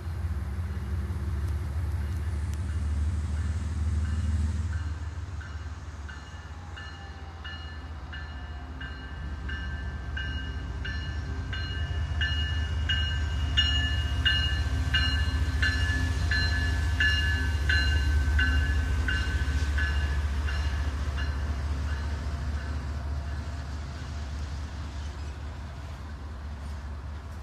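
Norfolk Southern GE Dash 9 diesel locomotive passing with its bell ringing about twice a second over the low rumble of the engine and the rolling train. The bell grows louder as the locomotive comes by and fades off near the end.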